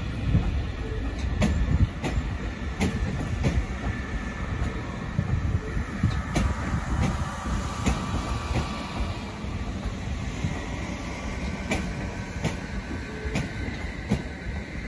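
Southern Class 377 Electrostar electric multiple unit rolling slowly through station pointwork: steady wheel rumble with sharp clicks at uneven intervals as the wheels cross rail joints and points, and a faint wheel squeal on the curve from about four seconds in.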